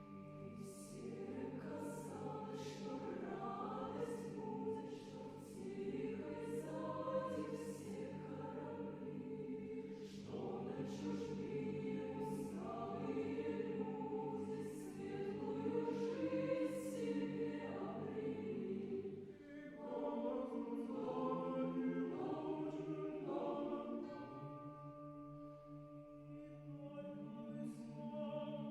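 Academic choir singing a contemporary Russian choral piece in Russian: held low chords under moving upper voices, with crisp 's' consonants cutting through. The sound thins out briefly about two-thirds of the way through, then the low voices come back and it swells again near the end.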